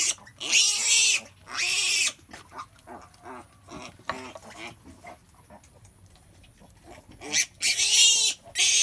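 Pigs squealing and grunting in short, harsh, loud bursts: two in the first couple of seconds, only faint short grunts through the middle, then a run of loud squeals again near the end.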